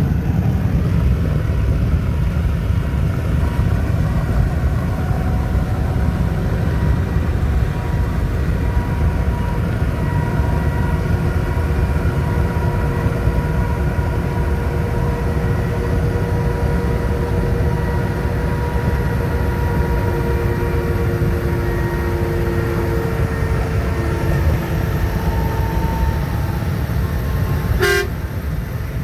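Steady low rumble of road vehicle noise, with faint steady tones above it that shift in pitch now and then, and a short sharp knock near the end.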